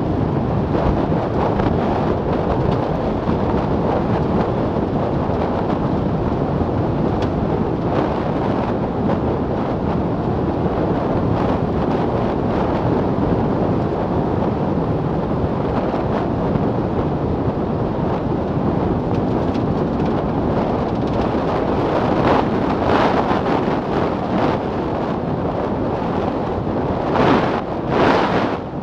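Wind rushing over the microphone with tyre and road noise from a roofless Milan Mk4 velomobile running at about 57 km/h. The sound is a steady rush that swells briefly louder a few times near the end.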